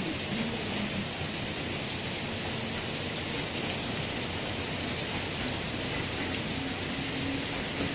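Torrential downpour: heavy rain falling steadily as a dense, even hiss of rain on surfaces.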